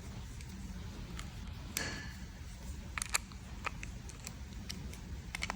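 Small sharp clicks and taps of a hex driver and plastic remote-control housing being handled as the cover screws are tightened, scattered irregularly, with one short scraping squeak about two seconds in, over a steady low hum.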